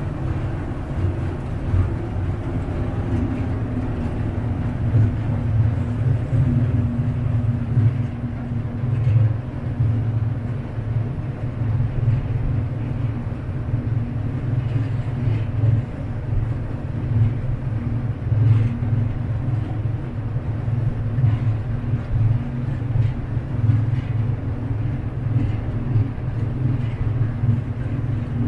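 Vaporetto water bus under way: its engine gives a steady low rumble, with the wash of the lagoon water passing the hull.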